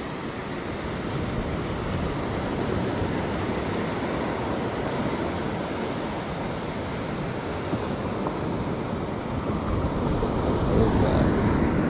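Ocean surf washing onto a sandy beach, a steady rush that swells a little near the end, with wind on the microphone.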